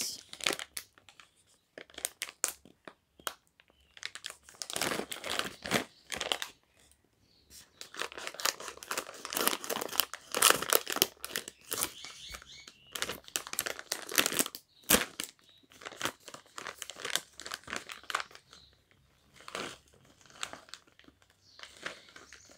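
Plastic snack pouch crinkling and rustling in irregular bursts as it is handled and torn open, then tipped to shake the chips out into a hand near the end.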